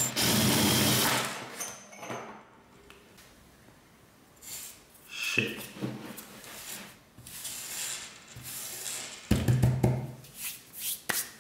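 Small electric drill boring through the thin metal of a desk lamp's arm bracket, in two short runs: one at the start and one about nine seconds in. Quieter handling and scraping noises fill the gap between.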